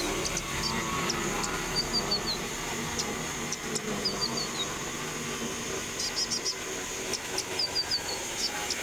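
A small songbird, the konin, singing short phrases of three or four quick, high, falling notes, repeated every second or two over a steady hiss.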